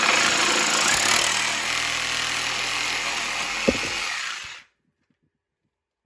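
Reciprocating saw cutting through PVC drain pipe, running steadily, with a short knock near the end; the saw cuts off suddenly about four and a half seconds in.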